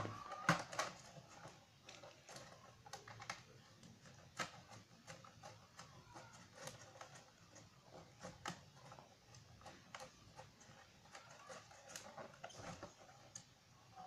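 Faint, irregular light clicks and taps of plastic as a cooling fan with a wire grille is handled and fitted into a white plastic housing.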